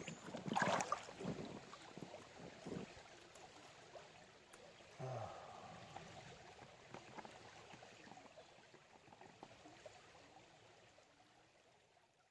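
Water sloshing and splashing in a gold pan as it is dipped and swirled in a creek, washing gravel down toward black-sand concentrate. The loudest splashes come about half a second in and again about five seconds in, then a gentler wash fades toward the end.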